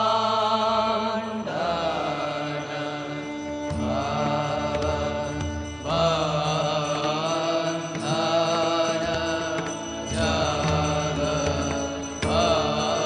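Indian devotional music: a chanted melody in long held phrases, several starting with a short upward slide, over a steady drone.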